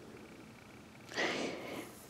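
A short breath drawn through the nose, under a second long, about a second in.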